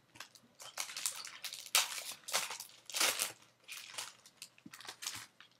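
A foil Match Attax trading card packet being torn open and crinkled in the hands: a run of irregular crackles and rustles that stops near the end.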